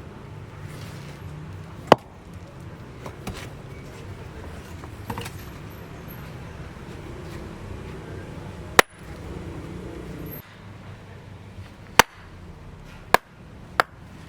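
A steady low background rumble broken by a few sharp, loud knocks: one about 2 s in, one about 9 s in, one about 12 s in, and two close together near the end.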